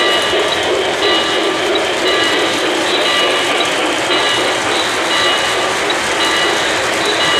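O-gauge three-rail model freight train rolling over the track, a steady rumble of wheels and motor. A high electronic tone beeps on and off about once a second over it.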